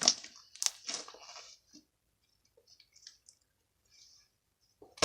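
Crunchy slime squishing and crackling as it is worked into a bubble: a burst of wet clicks in the first second and a half, then faint scattered clicks. A sharp knock near the end.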